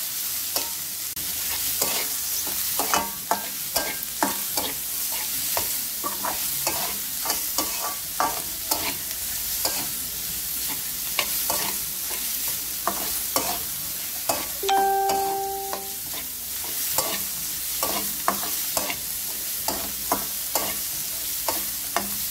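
Small river shrimp stir-fried over high heat in a metal wok: a steady sizzle, with the metal spatula scraping and knocking against the pan again and again. About fifteen seconds in, a single steady beep sounds for about a second.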